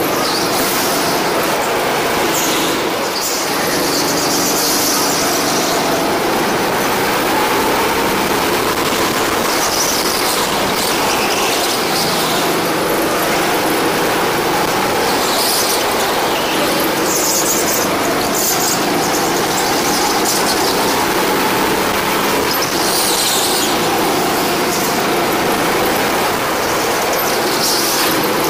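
Go-kart engine running hard through a lap, its pitch rising and falling with the throttle, with the tyres squealing in short bursts through the corners, heard from a camera mounted on the kart.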